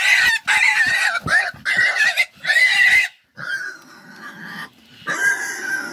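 Vietnamese pot-bellied boar squealing while held down on its back: loud, high, wavering squeals for about three seconds, then fainter squeals.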